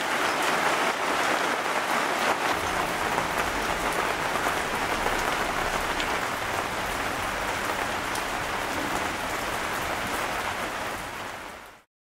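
Steady patter of rain, an even hiss with scattered small drop ticks, fading out near the end.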